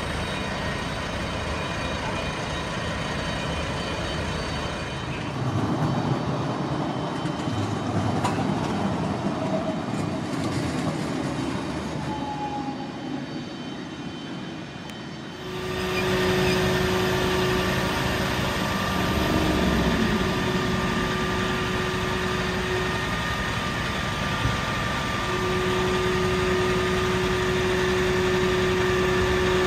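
Fire engines' engines running at the scene, a steady mechanical drone. About halfway through it becomes a closer, louder hum with steady pitched tones, which briefly drop out and return near the end.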